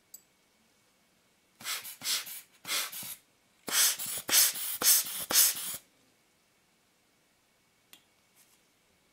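Hand-squeezed rubber air blower puffing air over a lens element to clear dust and a hair. It gives two quick series of short hissing puffs, about a dozen in all.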